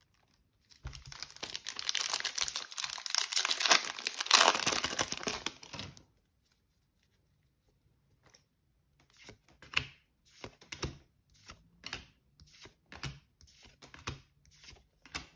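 Plastic trading-card booster pack wrapper torn open and crinkled for about five seconds. After a short pause come soft card flicks, about one a second, as the cards are slid one after another off the stack.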